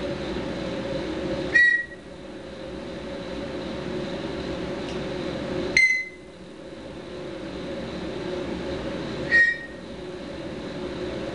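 African grey parrot giving three short, sharp squawks about four seconds apart, the squawk patterns it uses to work a computer game's menu, over a steady low hum.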